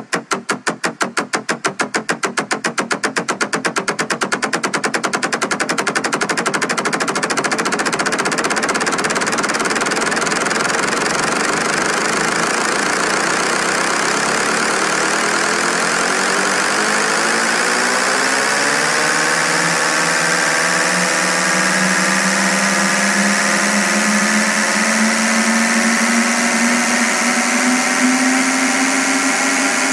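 Electronic dance music build-up: a snare roll that speeds up until the hits blur into one continuous buzz, then, past the halfway mark, a synth sweep that rises in pitch and settles into a held, buzzing synth chord.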